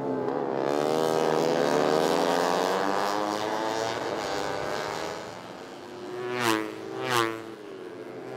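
Four-stroke 150 cc underbone race motorcycles running at high revs: several engines swelling together over the first few seconds, then two quick, loud passes one after another near the end, each a brief sweep in pitch.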